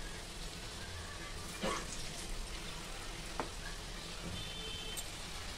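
Oil sizzling steadily as lauki (bottle gourd) and besan kofte fry in a metal kadhai on high flame. Two light knocks, about one and a half and three and a half seconds in, from the metal slotted spoon against the pan.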